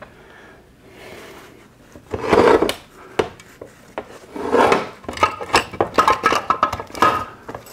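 Rubbing and scraping as a T10 gearbox case is handled and wiped with a shop rag on a steel workbench: two scraping passes, then a quick run of small metallic clinks and knocks with a faint ring over the last few seconds.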